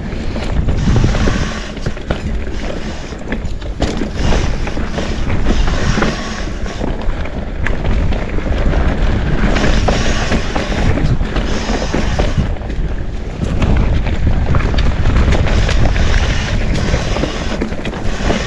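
Mountain bike ridden fast down a dirt trail: a steady rush of wind on the microphone over the rumble of tyres on dirt, with frequent small rattles and knocks from the bike over rough ground.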